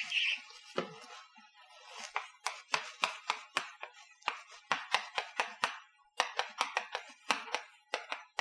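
Chalk clicking and scraping on a blackboard as kanji are written stroke by stroke: a quick series of short taps, about three or four a second, starting about two seconds in. Just before that, the last strokes of a blackboard eraser.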